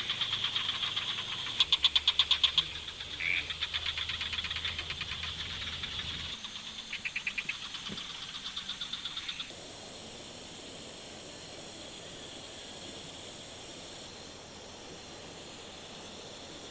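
Insects and frogs calling: a steady high buzz with bursts of loud, rapid pulsed trills. About nine and a half seconds in it cuts to a quieter, steady hiss.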